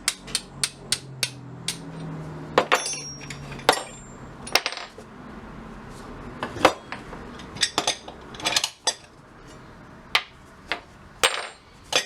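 Metal parts of a vintage jawbreaker vending machine being tapped and clanked while it is taken apart: a quick series of light taps at the start, then irregular sharp clinks, some with a brief ring.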